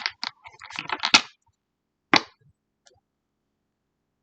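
Tarot cards handled on a table: a short rustle of cards about a second in, then a single sharp tap as a card is put down, with a faint tick after it.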